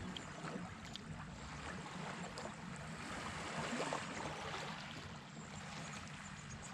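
Steady rushing noise of water and wind, with a low hum underneath.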